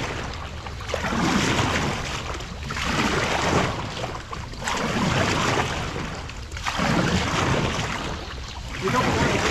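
A wooden paddle stroking and splashing water beside an outrigger canoe's hull, a surge of water noise about every two seconds.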